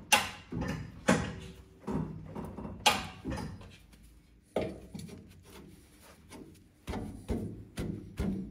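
Heavy steel coil spring knocking and clanking against the axle and spring mount as it is worked into place by hand. The loudest clanks come near the start, about a second in and about three seconds in, followed by softer knocks.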